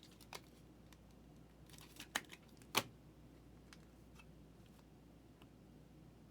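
Trading cards being handled and sorted: a few faint, sharp clicks and snaps of card stock, the loudest about three seconds in, then only light ticks.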